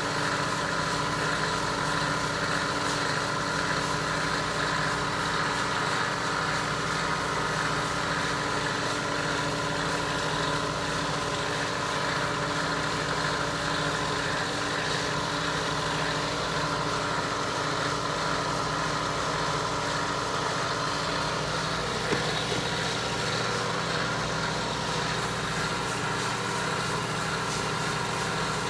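Steady mechanical hum, like a motor running, holding several tones with no change in pitch. One short click about 22 seconds in.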